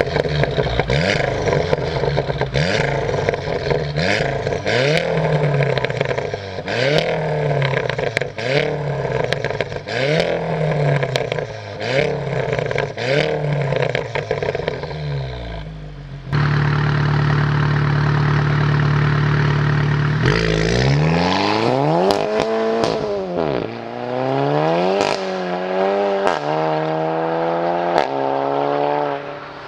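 Tuned VW Golf GTI Clubsport's turbocharged 2.0-litre four-cylinder, with a hybrid turbo and a Milltek downpipe with sports cat, being revved in short blips about once a second, with sharp crackles from the exhaust as the revs drop. About halfway through, the sound switches suddenly to a steady high-rev note, then the revs rise and fall several times.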